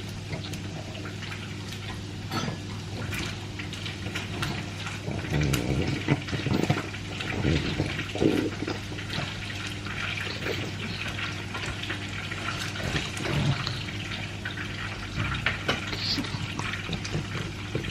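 Pug eating dry kibble mixed with beef from a bowl: irregular wet chewing, smacking and crunching, busiest in the middle and again near the end.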